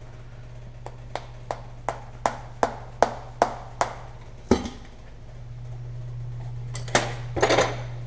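Hand tools and metal parts on a Chevy engine being stripped at the intake manifold: a row of about ten evenly spaced sharp metal taps, roughly two and a half a second, growing louder. A single heavier knock follows, then a short metal clatter near the end.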